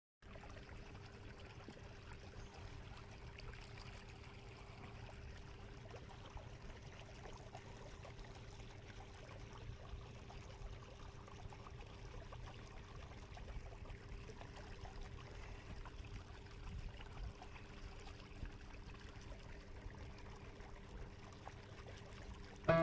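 Faint water trickling and splashing along a plastic kayak's hull as it moves under an electric trolling motor, with a low steady hum underneath.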